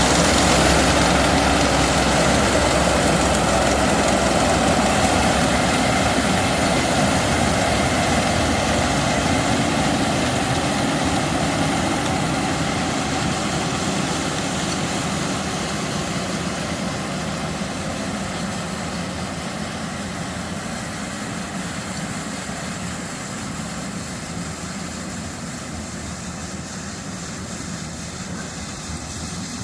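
Combine harvester running steadily through a rice field, its engine and machinery a dense continuous noise that grows gradually fainter.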